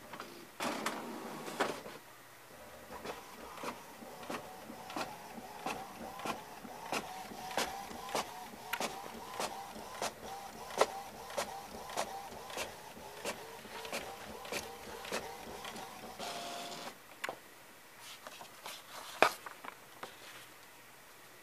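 HP Photosmart 7520 all-in-one printer's paper-handling mechanism running: a steady motor hum with regular clicks a little under twice a second. It stops about 17 seconds in, followed by a few scattered clicks and one sharp click near the end.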